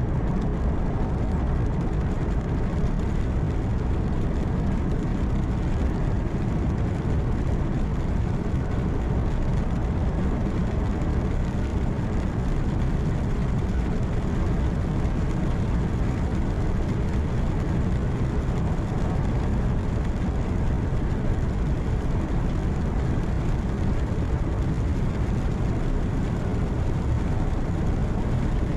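Steady low rumble of a truck cruising on the highway, heard from inside the cab: engine hum and road noise, even throughout with no distinct events.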